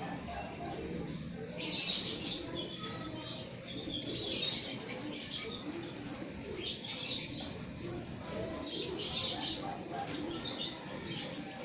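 Caged racing pigeon cocks cooing softly, with short higher-pitched bursts of sound every second or two.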